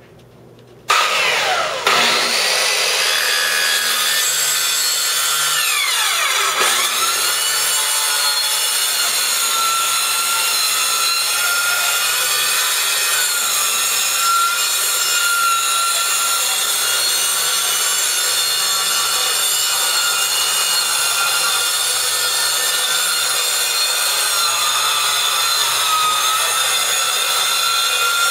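Handheld circular saw switched on about a second in, then running steadily under load as it cuts through a tiled countertop, its whine dipping briefly in pitch a few seconds in.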